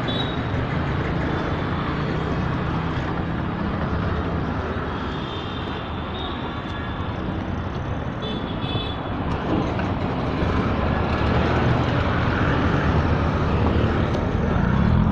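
City street traffic: a steady din of passing vehicles, with a few brief high tones on top, growing louder in the last few seconds.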